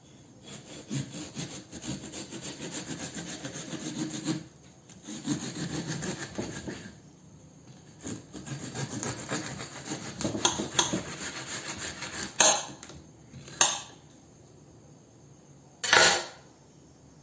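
A hand saw cutting through a watermelon in three runs of quick back-and-forth rasping strokes, followed by three sharp knocks, the last the loudest.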